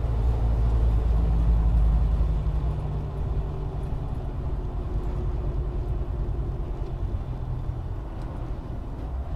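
Low, steady engine and road rumble of a car driving at highway speed, heard from inside the cabin through a dashcam's microphone; a little louder for the first couple of seconds, then slightly quieter.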